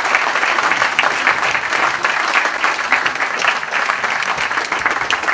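Audience applauding: a steady round of many hands clapping at once.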